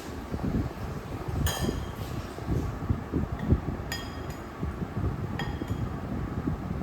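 Dishware clinking about four times, each a short ringing clink, over a steady low rumble.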